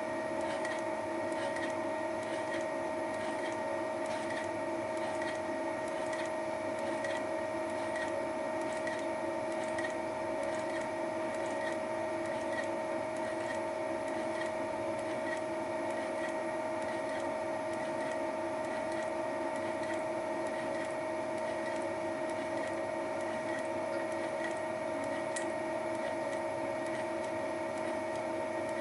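Thiel Duplex 158 milling machine running steadily with a Wohlhaupter UPA5 facing head taking a facing cut on a plastic housing: a constant whine of the drive, with a light tick repeating a little more than once a second.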